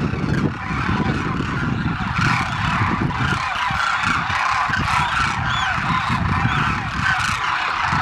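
A large flock of demoiselle cranes calling, many short overlapping calls forming a continuous chorus, over a low rumble that is heaviest in the first few seconds.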